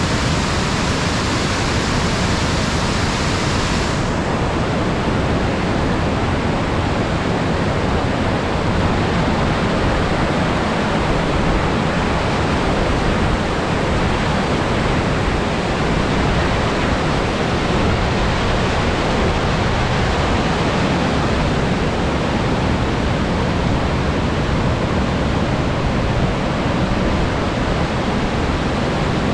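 Sugar River waterfall: water pouring over the falls in a loud, steady rush, a little duller in its top end from about four seconds in.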